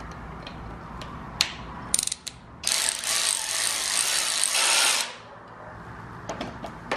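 Hand ratchet wrench clicking while backing out the fuel rail bolts on an engine: a few single clicks, then a fast continuous run of ratcheting for about two and a half seconds, then a few more clicks near the end.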